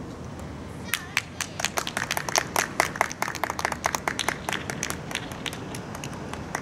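Spectators clapping: a scattering of separate hand claps starts about a second in, builds, then thins out before the end.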